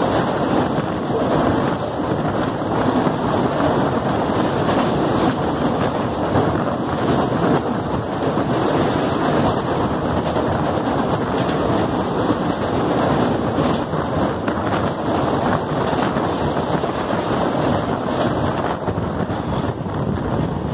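Passenger train running over a steel truss bridge, heard from an open coach door: a loud, steady rumble of wheels on the rails and girders, with wind buffeting the microphone.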